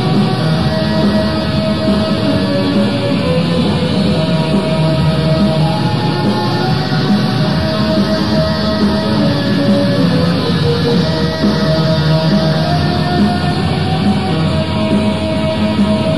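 Raw, lo-fi black metal recording: a dense, steady wall of distorted electric guitar with a slowly shifting melody line.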